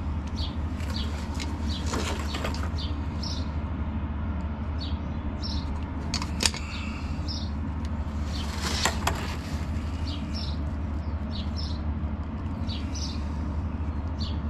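Small birds chirping repeatedly over a steady low rumble, with a sharp click about six and a half seconds in and brief rustling as bare wire ends are twisted together by hand.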